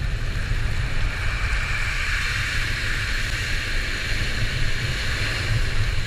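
Surf washing and breaking on a shingle beach, steady throughout, with wind rumbling on the microphone.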